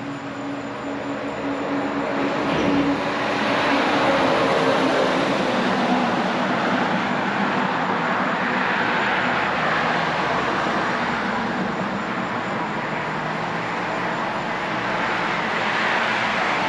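Road traffic driving by: a steady rush of tyre and engine noise that builds over the first few seconds and stays loud.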